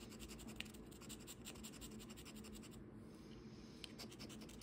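A coin scratching the coating off a scratch-off lottery ticket: faint, quick back-and-forth strokes, with a brief pause about three seconds in.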